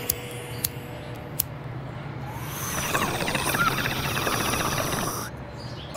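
A lighter clicking three times, then water bubbling in a glass bong as smoke is drawn through it, swelling over about a second and stopping shortly before the end.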